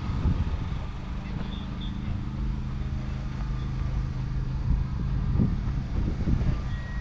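An engine idling steadily at a constant speed, with a few brief louder low rumbles near the end.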